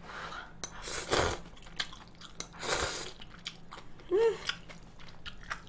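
A person eating mala tang noodles close to the microphone: two noodle slurps, about a second in and near three seconds, with wet chewing clicks between them and a brief hummed sound a little after four seconds.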